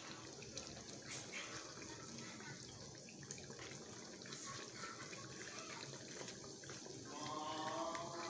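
Chicken and bottle gourd soup simmering in a pan with a steady, faint bubbling hiss, stirred now and then with a spatula. A faint pitched sound joins near the end.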